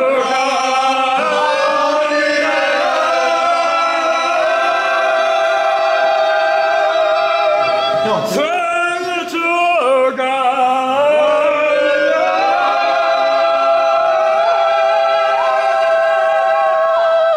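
Singing voices holding long notes, with a short break and pitch slides about eight to ten seconds in, then another long held note that stops abruptly at the end.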